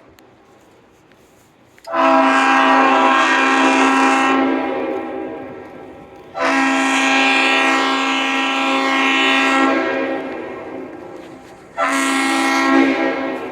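Locomotive air horn sounding three blasts, each a chord of several steady tones: two long blasts of about three seconds that fade away rather than stopping short, then a short blast near the end.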